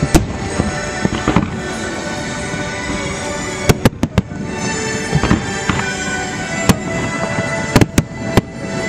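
Aerial fireworks shells bursting: about ten sharp bangs, several close together around the middle and near the end, over music playing steadily.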